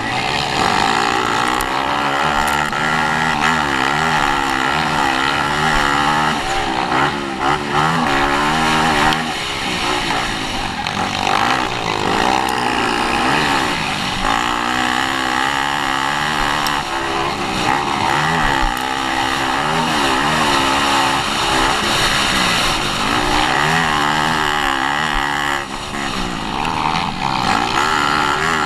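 Motocross dirt bike engine revving up and down over and over as it is ridden hard around the track, pitch climbing and dropping every second or two through the throttle and gear changes. A heavy rushing noise runs underneath it.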